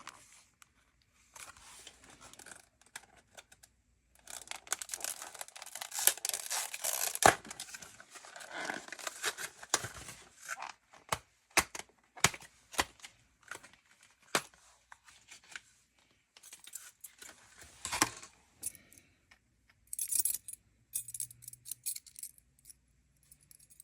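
A plastic lure package being torn and opened, with crinkling, followed by a series of sharp clicks and ticks as the packaging and the vibrating jig are handled.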